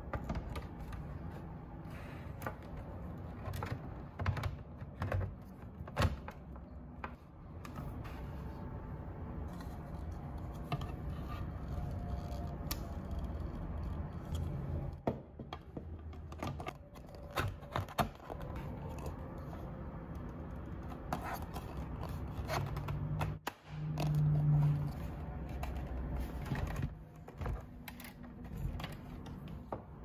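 Plastic parts of a Medify MA-22 air purifier being handled and assembled: scattered clicks, taps and scrapes as the HEPA filter is fitted and the base cover is twisted into place, with one louder low thump late on.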